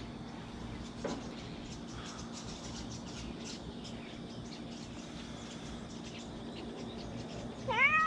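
Silver tabby cat meowing once near the end, a short call that rises and falls in pitch.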